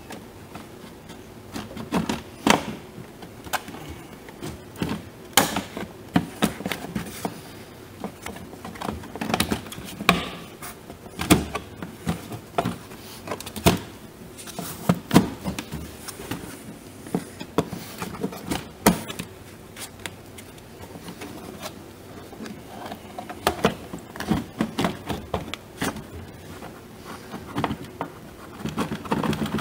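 New plastic windshield cowl of a VW Golf mk4 being worked down into place by hand: scattered, irregular clicks, taps and knocks of plastic parts.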